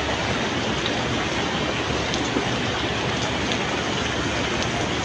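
Steady rush of water, spread evenly across high and low, with a few faint ticks on top.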